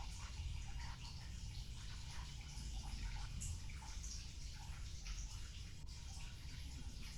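A sleeping cat snoring: a steady low rumble with small, scattered wet clicks.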